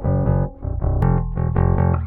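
Four-string Precision bass played through a Digitech Drop pitch-shifter pedal, a run of pitch-shifted notes. There is a sharp click about halfway through.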